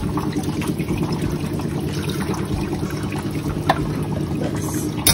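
Cold water poured steadily from a plastic bottle onto blanched spinach in a steel bowl, splashing and trickling: the spinach is being cooled so it stops cooking and keeps its green colour. A couple of brief clicks come through near the end.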